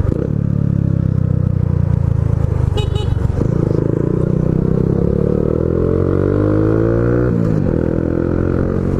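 Honda Biz 125's single-cylinder four-stroke engine running loud through an aftermarket aluminium sport exhaust while ridden. Its pitch climbs steadily as the bike accelerates, drops sharply about seven seconds in, then starts climbing again.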